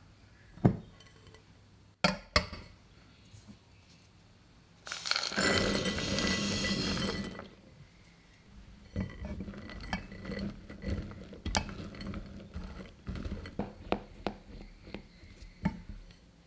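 A glass mixing bowl knocking and clinking as it is set on a saucepan, then a loud rush of noise for about two seconds. After that a silicone spatula stirs melted chocolate in the glass bowl, with soft scraping and light taps against the glass.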